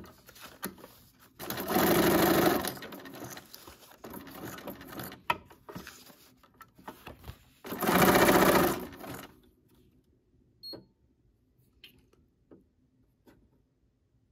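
Bernina sewing machine running in two short bursts, each about a second long, sewing a long straight stitch through paper. Small clicks and knocks come between the bursts, and only a few faint clicks after the second.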